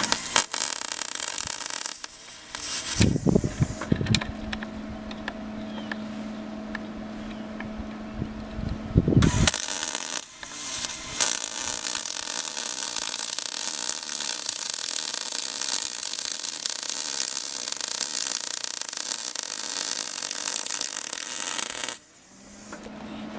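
Wire-feed (MIG) welding arc hissing and crackling: two short welds near the start, then one long bead of about twelve seconds that cuts off suddenly. A steady low hum from the welding machine sounds in the gaps between welds.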